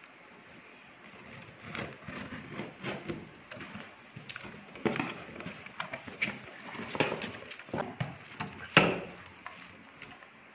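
A cardboard shipping box being opened by hand: packing tape slit with a knife and pulled, flaps pulled back, cardboard knocking and rustling, in an uneven run of scrapes and clicks that starts about a second and a half in. The sharpest crack comes near the end.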